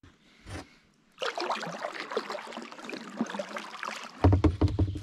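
Kayak paddling on calm river water: the paddle blades dipping and pulling, with splashing and dripping, starting about a second in. Near the end come a few louder low thumps.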